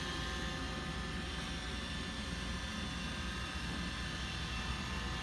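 Roomba 900-series robot vacuum running: a steady motor whine over an even hiss of suction airflow.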